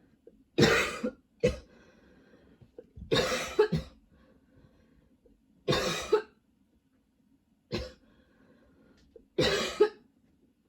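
A woman coughing in a spell: about six coughs or quick runs of coughs, a second or two apart. She puts the nonstop coughing down to a lingering tickle in her throat.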